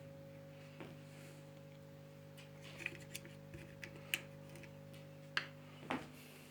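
Scattered light clicks and taps of small parts being handled on a workbench, over a steady electrical hum.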